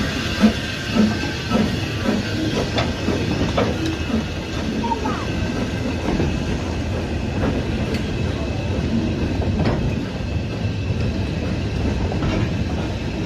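Small steam locomotive chuffing with regular exhaust beats as it pulls away with a short goods train. The wagons then roll past with a steady rumble, clicking and clanking over the rail joints.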